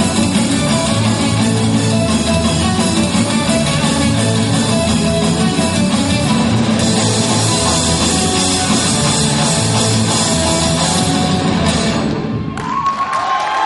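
Live rock band playing loud, with electric guitars, bass guitar and drum kit, ending suddenly on a final hit near the end; the crowd starts to cheer as it stops.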